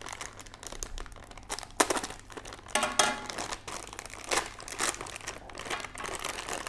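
Thin plastic packaging pouch crinkling as it is handled and pulled open by hand, in irregular crackles with a few sharper rustles.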